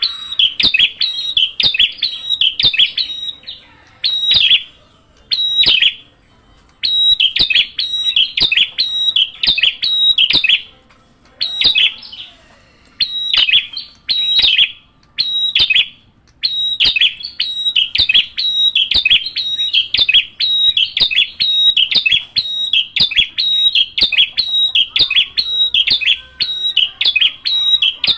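Small bird calling with rapid, sharp chirps, about three a second, in runs of a few seconds broken by brief pauses.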